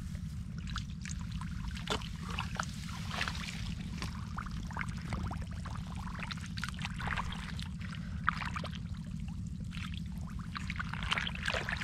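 Hands scooping and splashing in a shallow, muddy paddy-field ditch, water pouring and trickling off them in many small irregular splashes, over a steady low rumble.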